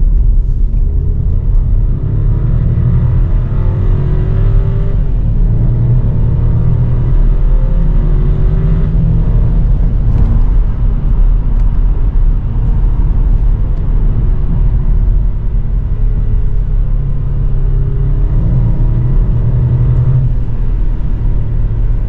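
Volkswagen T-Cross's 1.0-litre turbocharged three-cylinder engine under full-throttle acceleration, heard from inside the cabin over heavy road rumble. The engine note climbs in pitch and drops back at each upshift of the dual-clutch gearbox, then climbs again.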